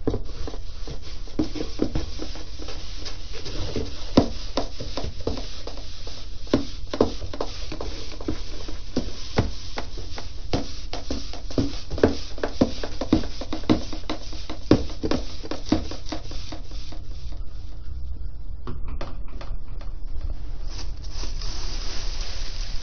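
Plastic bag rustling as it is handled, with irregular knocks and taps through most of it, then a few seconds quieter near the end.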